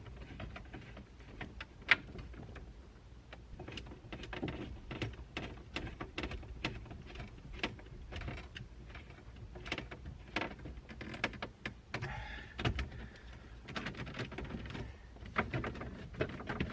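Plastic dash trim and radio housing being handled and fitted, with a run of irregular clicks, taps and knocks. The sharpest click comes about two seconds in.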